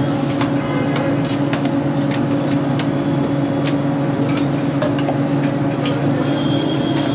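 A steady low mechanical hum, with a scatter of sharp clicks and scrapes from a metal spatula and tongs working paranthas on a large iron tawa.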